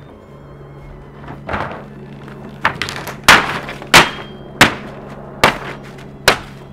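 An easel and a framed painting being knocked over and smashed: a run of about seven sharp thuds and cracks, irregularly spaced, over a steady low hum.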